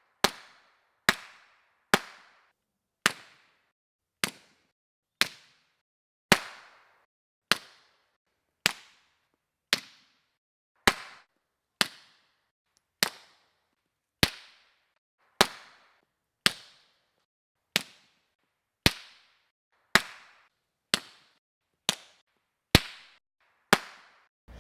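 Suppressed 9mm pistol shots from a full-size Smith & Wesson M&P 9 fitted with short 9mm suppressors run wet, about two dozen single shots at an even pace of roughly one a second. Each shot is a sharp crack that dies away quickly.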